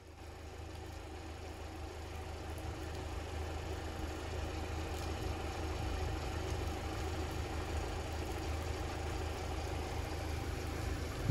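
An engine idling: a steady low hum that grows louder over the first few seconds, then holds.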